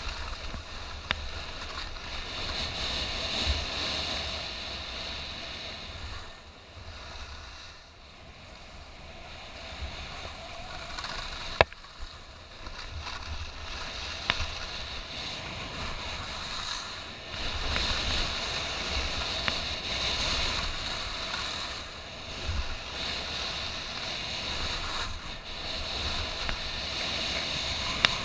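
Skis running over freshly groomed snow: a rushing hiss that swells and fades with each turn, over low wind buffeting on the microphone. A few sharp clicks cut through, the loudest near the middle.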